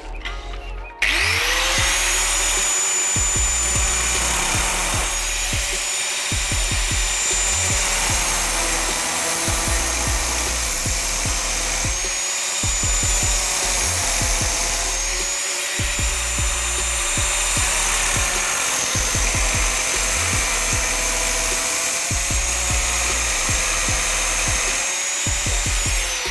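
Handheld electric angle grinder switched on about a second in, spinning up to speed and then cutting into sheet steel. Its whine dips in pitch again and again under load, and it starts winding down at the very end.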